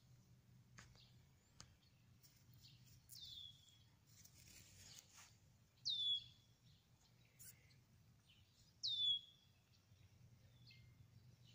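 Mouse squeaking while a cat bats it about: three high, falling squeaks about three seconds apart, the last two loudest.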